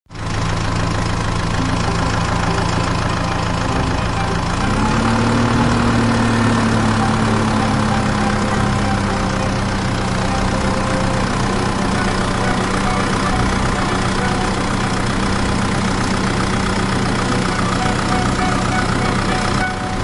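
Diesel engine of a JCB backhoe loader running steadily. About five seconds in it revs up, then eases back over the next few seconds to a steady pitch a little above where it started.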